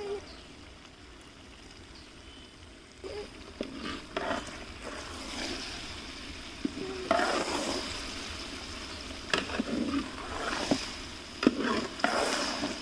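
A long metal ladle stirring and scraping mutton and onions frying in a large aluminium pot, with sizzling from the hot oil. The scraping and clattering strokes come irregularly from about three seconds in, growing louder and more frequent in the second half.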